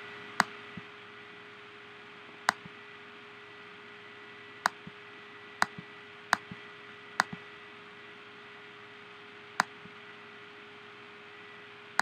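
Computer mouse clicks, about eight spread unevenly, several with a softer release click just after the press, over a steady faint hiss and hum.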